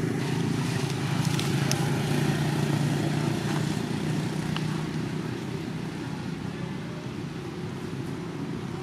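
A motor vehicle engine running with a steady low hum that eases off about halfway through.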